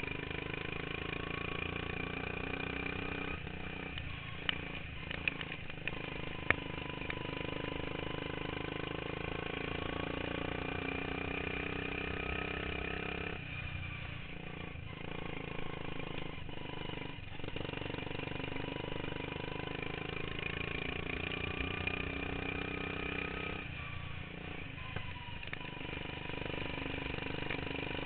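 Modified racing lawn mower engine running hard, easing off and picking back up about halfway through and again near the end, with a few sharp knocks in the first several seconds.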